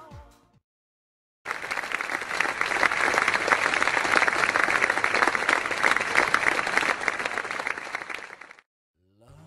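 A crowd applauding, laid in as a sound effect: it starts abruptly about a second and a half in, runs evenly for about seven seconds and cuts off sharply. Background pop music fades out just before it and comes back near the end.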